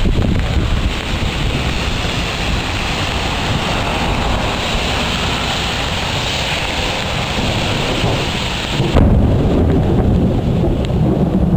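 Thunderstorm: heavy rain hissing over a low rumble of thunder. About nine seconds in the rain hiss drops away suddenly and a deeper rumble takes over.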